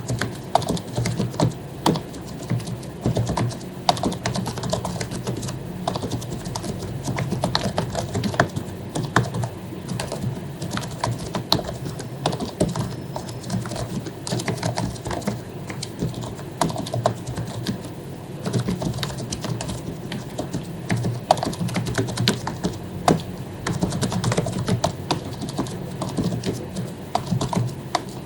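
Continuous fast typing on an HP zpr110U1 membrane keyboard whose keycaps have been lubed, a dense irregular patter of soft key clicks. A low steady hum runs underneath.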